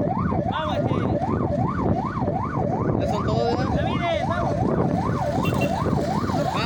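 Electronic yelp siren sweeping quickly up and down, about two and a half times a second, from a race escort vehicle, over the low rumble of motorcycle engines.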